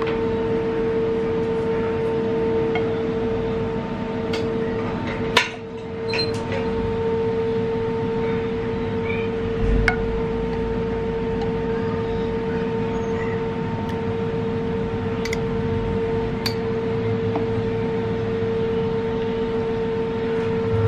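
A steady hum of a few held tones, with a handful of light clicks scattered through it.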